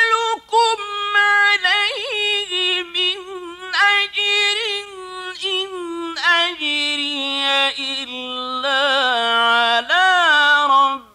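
A man reciting the Quran in the melodic, drawn-out mujawwad style, holding long ornamented notes whose pitch steps gradually downward over the phrase. The voice breaks off for a breath at the very end.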